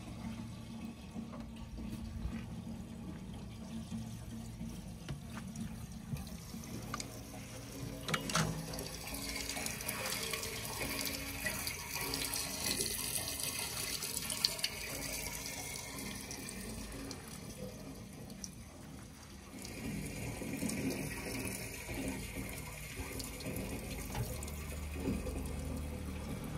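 A diesel engine running steadily, with a rushing hiss that swells up about a third of the way in, drops briefly, and comes back for the last part.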